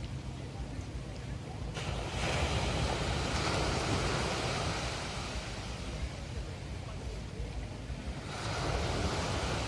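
Ocean surf breaking on a sandy beach. One wave crashes about two seconds in and washes out over several seconds, and another breaks near the end.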